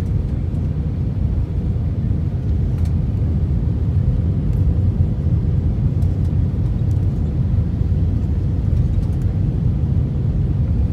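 Steady low rumble of engine and airflow noise inside an airliner cabin on final approach, moments before touchdown.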